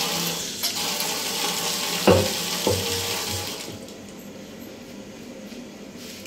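Kitchen tap running into a sink, with two knocks about two seconds in; the water stops about three and a half seconds in.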